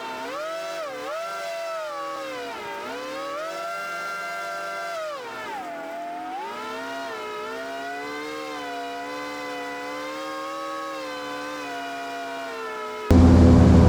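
Background music: a single siren-like tone with many overtones, sliding and wavering up and down in pitch. Near the end it cuts abruptly to a much louder airboat engine.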